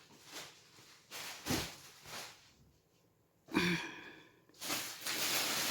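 Rustling and handling noise from unwrapping the plastic-bagged gift, in short bursts and then a steadier rustle near the end, with a brief voice sound (a sigh or exclamation) just past halfway.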